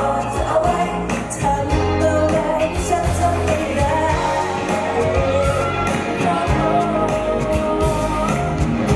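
Live band playing a pop-rock song: a male lead singer sings the melody over drums, electric guitars and keyboards.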